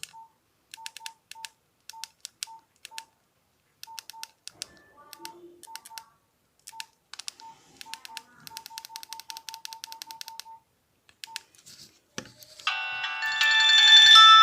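Nokia 1616 mobile phone's keypad beeping at each button press: short single beeps, spaced at first, then a quick run of about five a second. Near the end one of its ringtones starts playing, a bright tune louder than the beeps.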